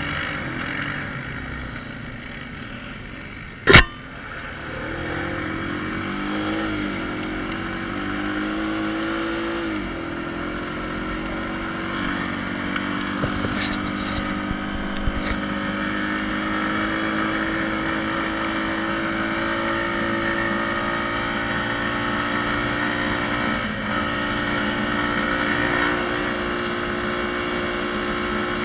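ATV engine running under way, climbing in pitch as it speeds up, dipping briefly about ten seconds in, then holding steady. A single sharp knock about four seconds in.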